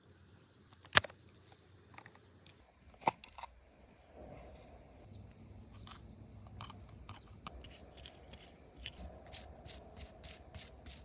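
Faint outdoor background with a steady high insect-like chirring, broken by a couple of sharp clicks early and a run of quick small ticks and scrapes near the end.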